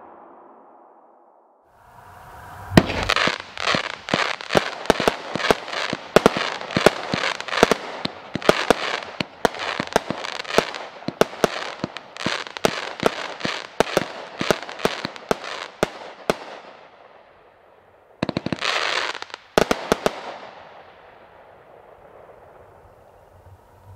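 A 'Fighting Rooster' consumer firework cake firing: about three seconds in, a quick string of sharp bangs starts, two to three a second with crackle between them, and runs for some thirteen seconds. A short final volley follows near the end, then the sound fades away.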